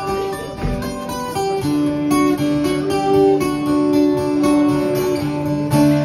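Guitar strummed live, chords ringing on between strokes: the instrumental introduction of the song, before the vocals come in.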